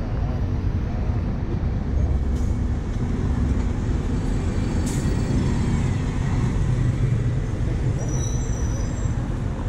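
Articulated diesel city bus with a Euro 5 engine driving slowly past close by, its engine running over a steady rumble of intersection traffic, with a brief high hiss about five seconds in.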